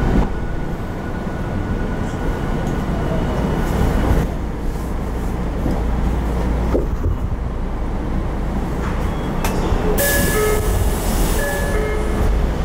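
Interior running noise of a Tokyo Metro 02 series subway car, an unrenewed set with a Toshiba IGBT-VVVF inverter: steady rumble of wheels and motors as the train nears a station. Near the end a hiss comes in, with a few short tones over it.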